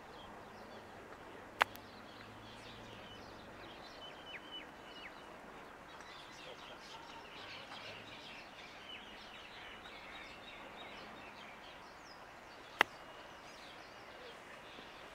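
Two crisp clicks of a 60-degree wedge striking golf balls on chip shots, about a second and a half in and again near the end, over steady background noise with birds chirping.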